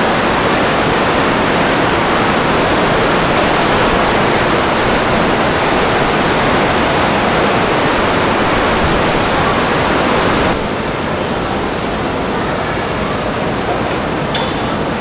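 Steady, loud rushing of wind over the deck of a moving ship. It drops a little about ten and a half seconds in.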